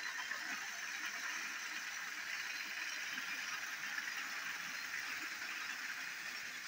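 Battery-powered toy train engine's small motor running steadily as it pulls a short train of trucks along plastic track, with a light rattle of the wagons' wheels.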